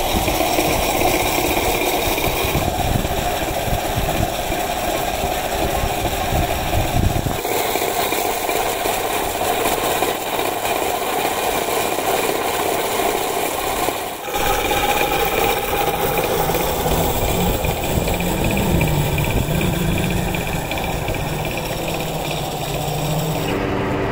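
Plywood mill machinery running loudly and steadily, a dense mechanical din with a few steady tones. The sound changes abruptly about 3, 7 and 14 seconds in.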